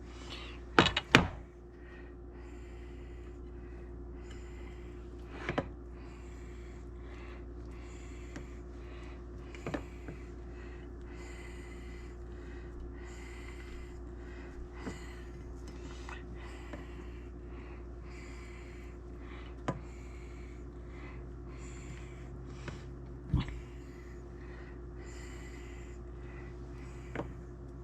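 Soft, intermittent scraping and rubbing over a steady low hum as melted garlic butter is spread over bread dough, with a few light knocks, roughly one every four seconds.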